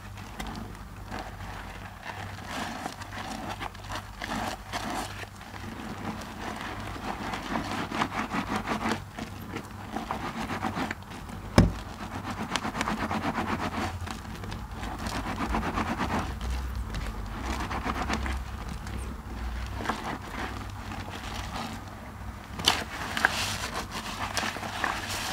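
Wet, foam-soaked sponges squeezed and kneaded in gloved hands in a bowl of thick soap paste: squelching and crackling of suds, rising and falling with each squeeze. One sharp knock stands out about halfway through.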